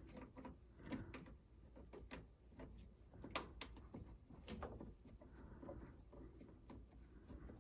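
Faint scattered clicks and small handling noises of low-voltage control wires being reconnected by hand.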